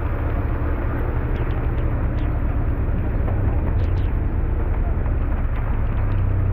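Willys jeep engine running steadily under load as it crawls up a wet, muddy trail, heard close up, with scattered small ticks over it.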